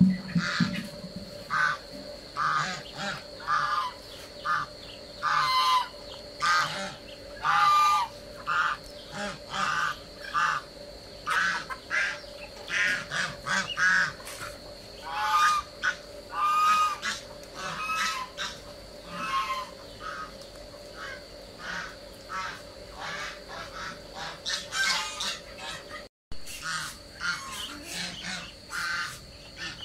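Domestic white geese honking repeatedly, short calls coming about once or twice a second, among a mixed flock of poultry.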